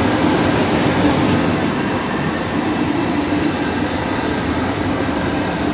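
CFL class 3000 electric locomotive (No. 3004) rolling slowly past at close range, with a loud, steady running noise and a steady hum under it.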